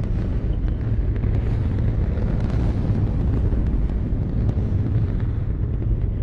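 Saturn V S-IC first stage's five F-1 rocket engines firing on a static test stand: a steady, deep rumble of rocket exhaust, heaviest in the bass, with scattered faint crackles.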